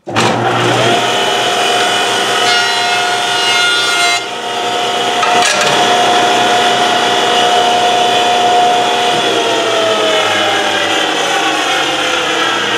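Jointer switched on: the motor and cutterhead spin up within a second to a steady, loud whine, and a board is face-jointed over the cutterhead. A knock comes about halfway through, and near the end the whine slowly sinks in pitch.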